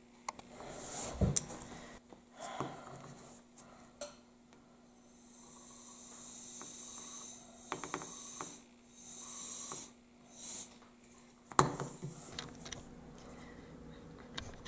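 Can of compressed air duster hissing through its thin extension straw in a few bursts over several seconds, blowing wet alcohol ink across the plastic sheet. There is a sharp knock about a second in and another near the end.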